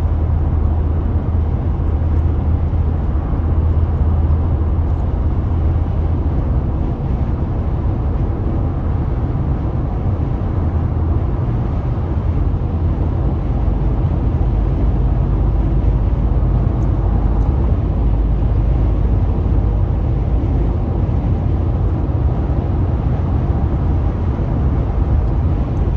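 Car in motion: steady low rumble of engine and road noise heard from inside the moving car.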